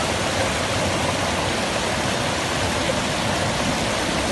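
Muddy floodwater pouring over an overflowing dam's spillway wall and churning below it: a steady, even rush of water.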